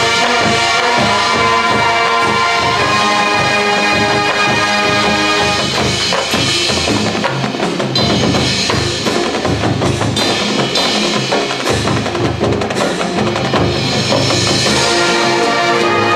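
Marching band music led by the percussion section playing a busy drum passage. Held brass chords fade out over the first few seconds, and the brass comes back in near the end.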